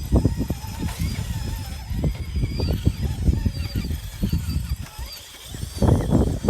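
Electric motor of an RC rock crawler whining, its high pitch wavering with the throttle, over low rumbling noise that swells again near the end.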